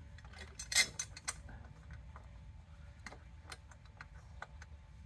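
Light metallic clicks and ticks of a bolt being fitted by hand into an exhaust pipe flange at the manifold, with one sharper clack about a second in.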